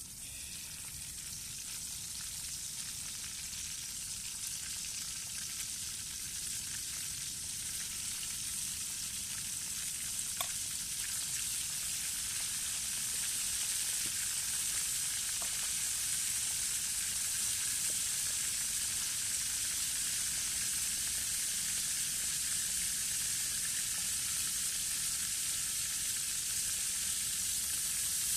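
Fish frying in hot oil in a pan: a steady sizzle that grows gradually louder, with a few faint pops.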